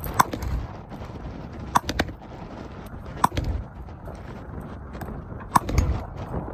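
Four gunshots about a second and a half apart, each a sharp crack followed by a low boom.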